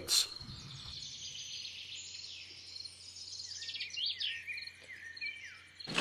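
Tropical forest ambience: birds chirping and insects calling in thin high-pitched notes, with a louder rising-and-falling bird call about four seconds in, followed by a few short falling chirps.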